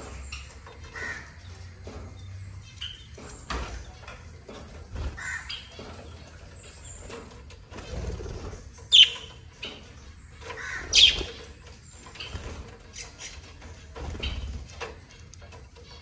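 A flock of budgerigars chirping and calling on and off, with two loud, sharp squawks about nine and eleven seconds in.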